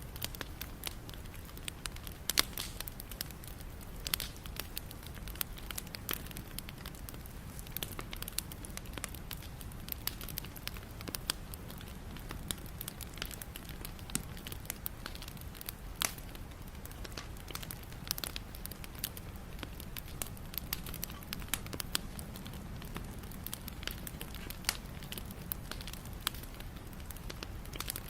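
Wood campfire crackling, with irregular sharp pops and snaps over a steady low rush.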